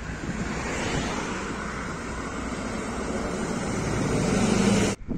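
Articulated city bus approaching and passing close by, its engine and tyre noise growing steadily louder, with wind buffeting the microphone. The sound cuts off suddenly near the end.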